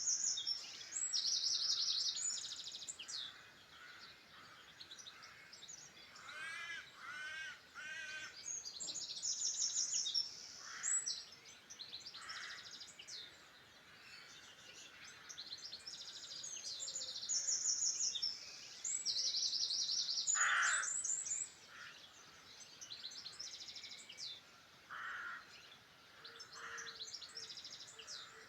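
Several wild birds singing and calling. Small songbirds repeat short, high, rapid trilled phrases every few seconds, broken now and then by short, lower, harsher calls.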